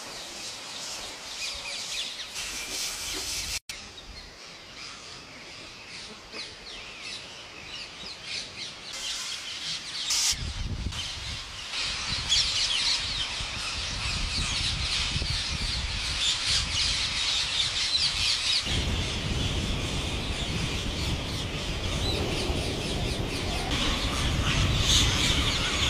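A large flock of rose-ringed parakeets calling together in a dense chatter of shrill chirps and squawks, growing thicker and louder after about twelve seconds, with a low rumble underneath from about ten seconds in.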